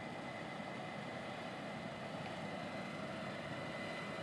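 Faint, steady machine noise of a combine harvester running, an even hiss-like drone with a thin steady whine.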